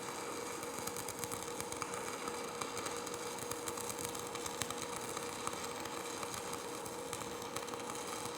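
Stick (shielded metal arc) welding arc crackling steadily as an electrode runs a bead along a downhand groove weld, over a steady hum.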